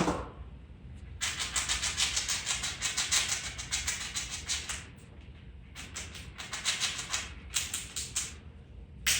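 Squirrel gnawing nuts, a rapid crunching and rattling of shell in two spells of several seconds each, the first starting about a second in and the second a little after the middle.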